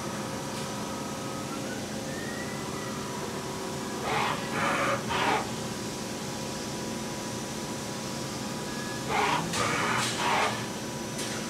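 Steady machinery hum with a few faint constant tones, interrupted twice, about four and nine seconds in, by a cluster of three short scuffing noises.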